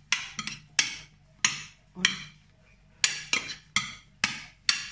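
A metal fork clinking against a glass baking dish as a grain salad is stirred: about ten sharp, unevenly spaced clinks.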